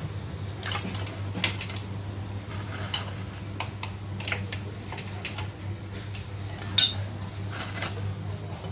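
Metal tools and parts clinking and clicking at irregular moments, the sharpest clink about seven seconds in, over a steady low hum.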